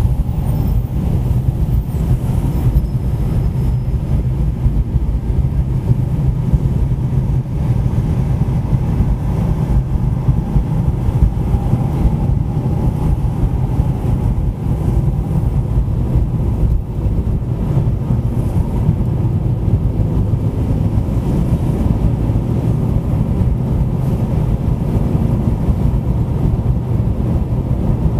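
Car driving steadily on a city road: a continuous low rumble of engine and tyre noise, with no sudden changes.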